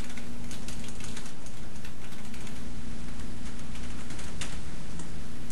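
Typing on a computer keyboard: a run of irregular keystroke clicks, over a steady low hum.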